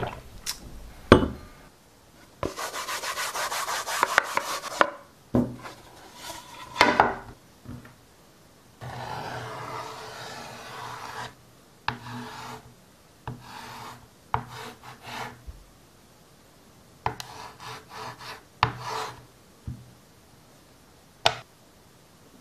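Chalk drawing on a small wooden-framed chalkboard: scratchy strokes, one long rapid rasping stretch and a smoother one, broken by short scrapes and sharp taps of the chalk against the board, the sharpest near the end.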